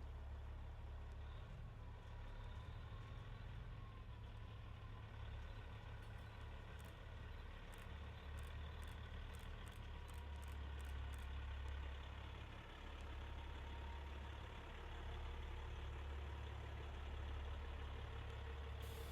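Diesel engines of semi-trucks running at low speed, a steady low rumble, with a short run of faint regular ticks in the middle.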